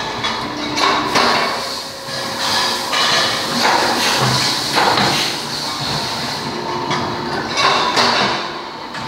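Metal workshop noise around a pipe-bending machine being worked: irregular metallic clanks and knocks about every second or two, over a steady machine hum.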